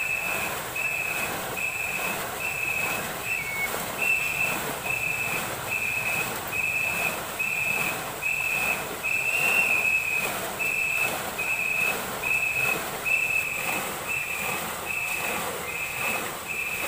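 A whistle blown in short, evenly spaced blasts, about three every two seconds with one longer blast near the middle, calling the stroke rhythm for a ngo-boat crew, over the steady churn and splash of many paddles driving through the water.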